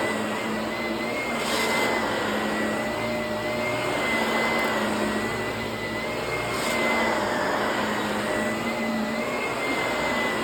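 Vacuum cleaner running steadily: a rushing airflow with a high, slightly wavering whine, the level rising and falling gently every few seconds.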